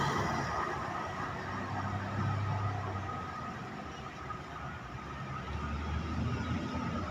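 Road traffic: the noise of a vehicle that has just passed close fades away, then engines run and pass at a lower level, with a low engine drone swelling about two seconds in and again near the end.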